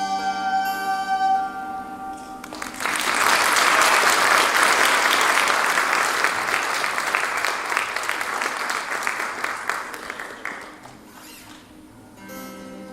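The song's last held notes on flute and acoustic guitar ring out and die away, then the audience applauds for about eight seconds, the clapping gradually thinning out.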